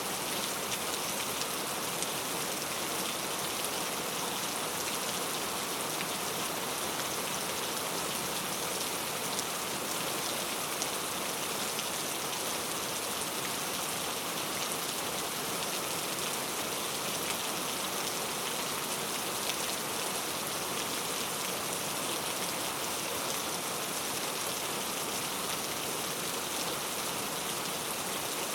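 Steady rainfall, a dense even patter of many drops with fine individual ticks.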